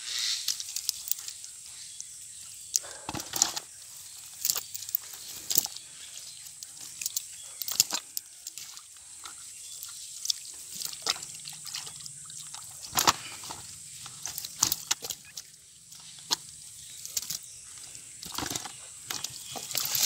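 Wet slaps, splashes and drips as live fish are worked out of a wet cast net in the mud and dropped into a plastic bucket, with the fish flapping; short sharp slaps come at irregular intervals.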